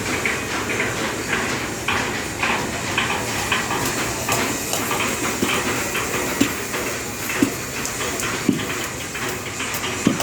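Workshop metalwork clatter: irregular knocks and clanks of metal over a steady background noise. In the second half, hammer blows land about once a second, each ringing briefly.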